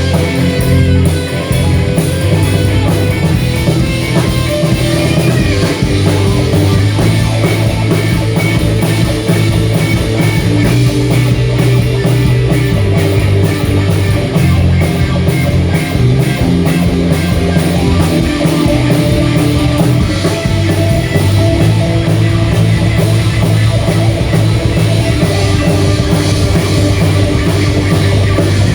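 Live blues-rock band playing loud electric guitar over bass and a drum kit keeping a steady beat.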